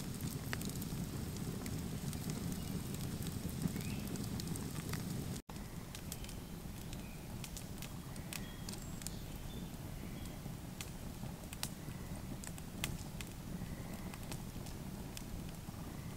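Wood fire burning in a stone fire pit: a steady low rush of flame, scattered with sharp crackles and pops from the burning logs.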